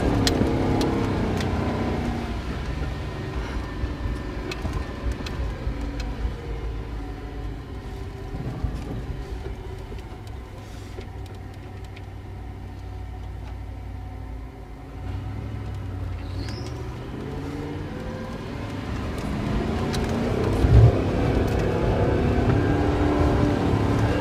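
Off-road 4x4's engine heard from inside the cab while driving through water, easing off through the middle and then revving up, with water splashing against the body. A single sharp thump near the end is the loudest sound.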